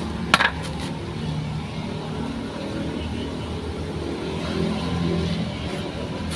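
A motor vehicle engine running steadily, its pitch wavering and swelling a little near the end, with a sharp metallic clink just after the start.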